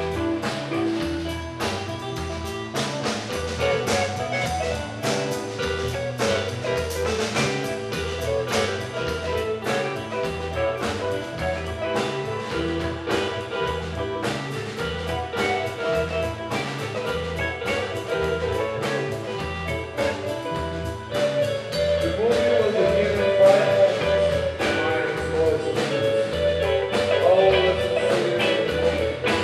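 Live rock band playing an instrumental passage: keyboard chords over a steady drum beat and pulsing bass, with sliding, bending notes entering about two-thirds of the way through.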